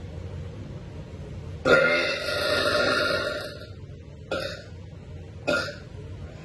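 A woman's long, loud, deliberate burp starting about two seconds in and lasting about two seconds, followed by two short, sharp sounds a second or so apart.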